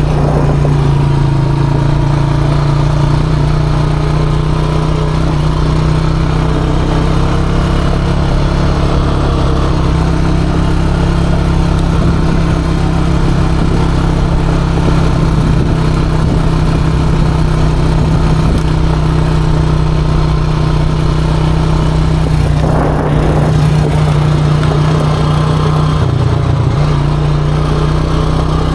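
ATV engine running steadily under way, holding an even pitch with a short dip near the end.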